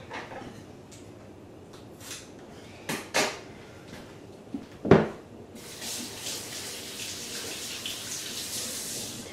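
A few knocks and clatters of things being handled, the loudest about five seconds in, then water running steadily from a kitchen tap over the last few seconds.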